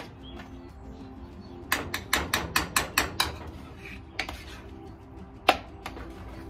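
A quick run of about eight sharp knocks, roughly five a second, then a few single knocks, the loudest one near the end, over soft background music.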